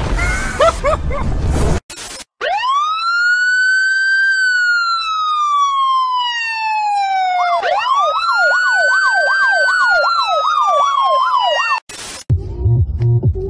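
Police-style siren: a wail that rises fast and then slowly falls, then a second wail with a fast yelp warbling over it, cutting off abruptly. A short burst of music follows near the end.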